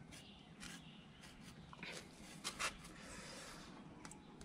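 Metal grooming comb raking through a golden retriever's long coat: a few faint, short scratchy strokes at uneven intervals, the strongest about two and a half seconds in.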